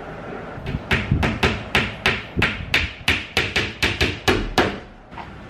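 Hammer striking a white flat-pack kitchen cabinet part: about fourteen quick, sharp blows in a row, roughly four a second, starting about a second in and stopping shortly before the end.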